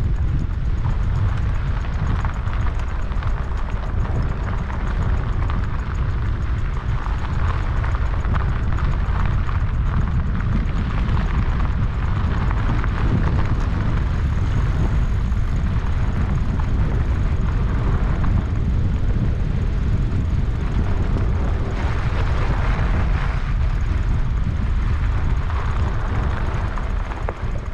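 Wind buffeting the microphone over the tyre noise of an e-bike rolling along a dirt jeep track, steady throughout.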